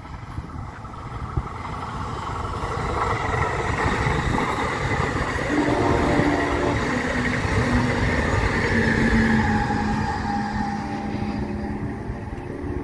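Amtrak Pacific Surfliner diesel passenger train passing close by. The rumble of wheels on rail builds over the first few seconds and then eases off. From about halfway through, a droning tone steps down in pitch as the train goes by.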